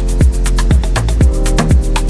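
Background electronic dance music with a steady kick-drum beat, about two beats a second, over sustained synth notes.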